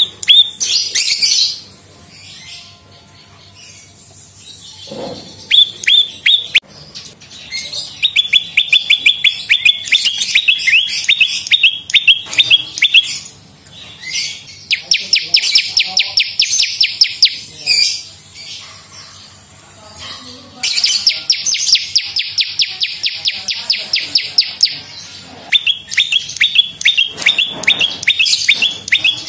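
Prenjak lumut calling in rapid, evenly repeated chipping trills, in bouts of a few seconds each with short pauses. Two of the bouts, in the middle and about two thirds of the way through, are faster and buzzier.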